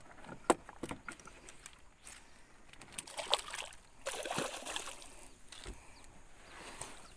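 Light splashing and trickling of water as a fishing lure is drawn across the surface close to a small wooden boat, with scattered small clicks and knocks; the splashing is loudest about three to five seconds in.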